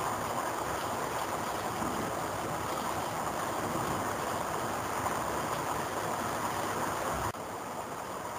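Rain falling steadily, an even hiss without pauses. About a second before the end it drops abruptly to a slightly lower level.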